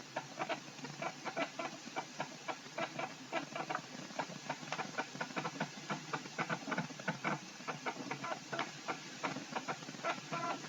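PowerBook 180's internal floppy drive reading a boot disk: a fast, irregular chatter of clicks and short buzzing steps as the head seeks. The machine is booting System 7.5 from floppy because its hard drive is dead.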